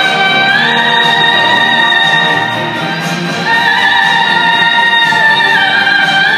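Live operatic singing with orchestral accompaniment: long held high notes that slide up or down to a new pitch a few times, over strings.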